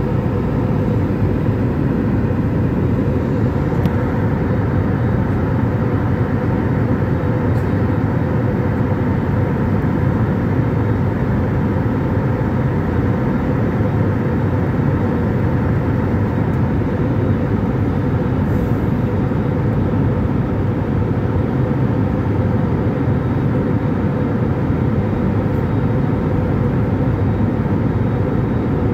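Steady cabin noise of an airliner in flight: its turbofan jet engines and the rushing airflow, heard from inside the passenger cabin during the climb after takeoff, with a faint steady hum under the noise.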